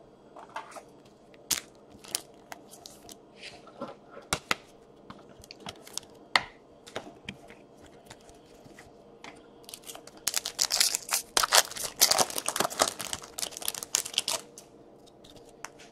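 Hockey trading cards being handled, with scattered light clicks and rustles. About ten seconds in, a card pack wrapper is torn open and crumpled in a dense few seconds of crackling.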